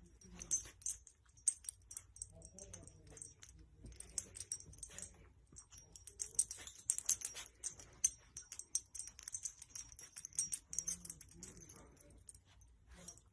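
Dog moving about with a light metallic jingling and many quick, irregular clicks, like collar tags jangling.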